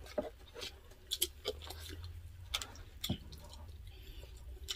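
Close-miked eating: scattered soft clicks and smacks of chewing, with light clinks of a spoon on dishes.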